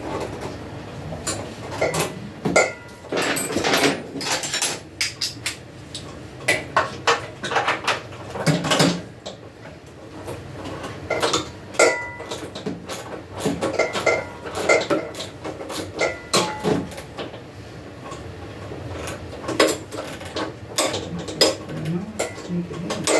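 Hand tools and metal motorcycle parts clinking and clanking in irregular knocks, some with a short metallic ring, as the shovelhead is taken apart.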